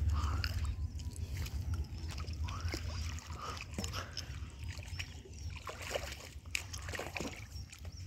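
A hooked fish thrashing and splashing at the water's surface as it is hauled in on a hand line to the bank: scattered short splashes over a low steady rumble.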